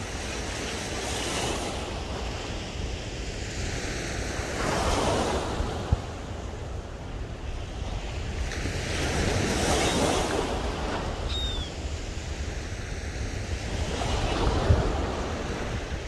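Gulf surf breaking and washing up the beach in swells about every five seconds, over a steady low rumble of wind on the microphone.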